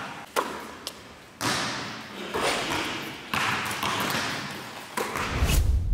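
Basketballs thudding one after another on a hard court, each hit followed by an echoing tail. A deep low rumble comes in near the end.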